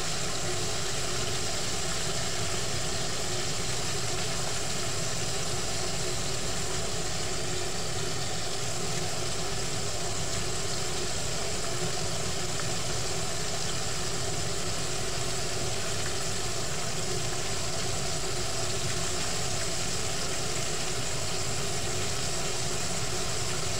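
Chicken frying in hot oil, an even, unchanging sizzle.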